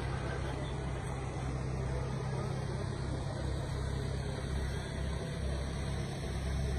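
An engine running steadily, a low even hum.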